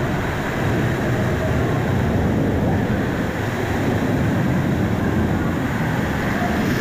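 Steady loud rush of flowing and falling water, a waterfall close by.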